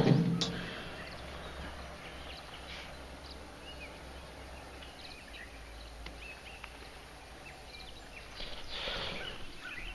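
A sharp knock of handling noise at the start, then quiet lakeside ambience: low wind rumble on the microphone under faint, scattered bird chirps. A short breathy sniff comes near the end.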